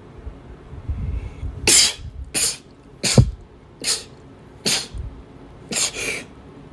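A young woman sneezing in a rapid fit: about six sharp sneezes less than a second apart, starting a little under two seconds in, the last one doubled.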